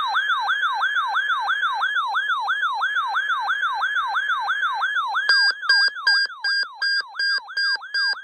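Electronic alert siren: a tone that falls sharply and repeats about four times a second. About five seconds in, a steady on-off beeping about twice a second joins it. The alert accompanies a NOAA Weather Radio required weekly test.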